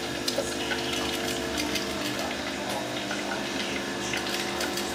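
Hot oil in an electric deep fryer sizzling, with scattered small crackles over a steady hum.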